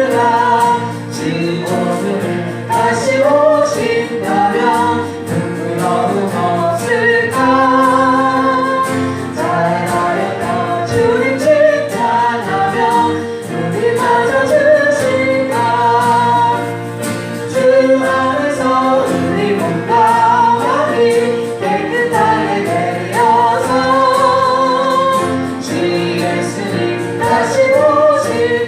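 A church congregation singing a gospel hymn together, with sustained instrumental accompaniment underneath.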